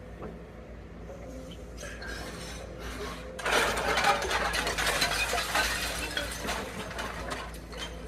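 A building being demolished: a heavy machine's engine runs steadily, and about three and a half seconds in a dense crackling clatter of breaking concrete and falling debris starts up and lasts about four seconds.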